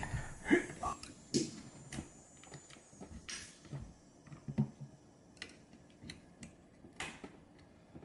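Scattered light clicks and taps of a steel extension spring and its metal hook being worked by hand onto an LG dishwasher's door hinge while the spring is stretched into place. The hook is going into the hinge's first hole, replacing the broken spring that let the door fall open.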